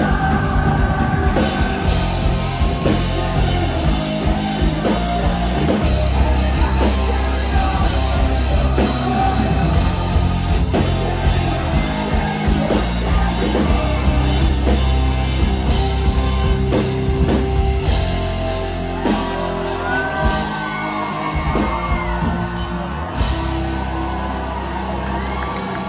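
Live rock band playing loud: distorted electric guitars, bass guitar and a drum kit, with a sung vocal. The full-band sound thins out somewhat over the last several seconds.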